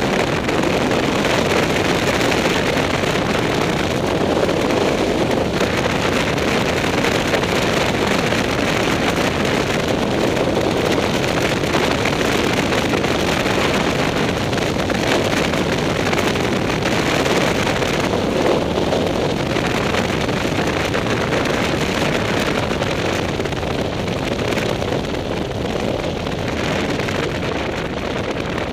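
Motorcycle on the move at a steady speed: engine running under a constant rush of wind over the camera microphone, a little quieter near the end.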